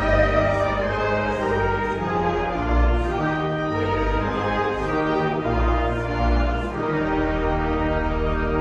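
Brass ensemble playing a hymn tune in slow, held chords with a strong bass line.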